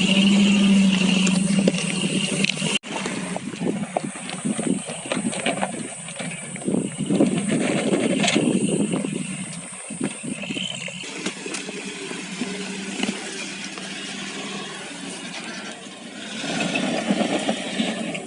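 Off-road SUV driving on a rough trail: its engine runs steadily and loudly at first, then, after an abrupt cut about three seconds in, the engine continues lower under a run of irregular knocks and rattles from the vehicle working over uneven ground.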